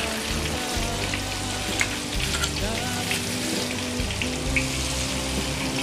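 Flour-coated chicken pieces deep-frying in hot oil in a wok: a steady sizzle with scattered crackles.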